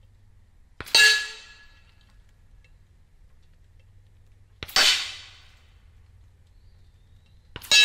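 Steel plate targets hit three times by subsonic .300 Blackout rounds from a 6-inch AR barrel at 300 yards, about three seconds apart. Each hit is a sharp metallic clang that rings briefly with a clear tone, with a faint click just before it.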